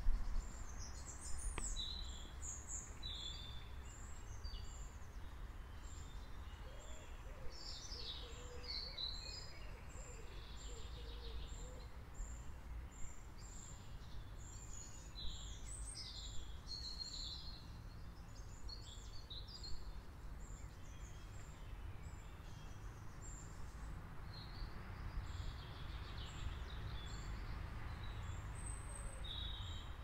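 Several songbirds singing in overlapping phrases, with one thin high note repeated about every half second through the first half, over a steady low background rumble.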